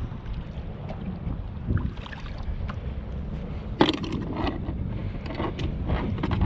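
Wind rumbling on the microphone aboard a kayak, with a sharp knock a little under four seconds in, followed by a run of smaller knocks and clatter.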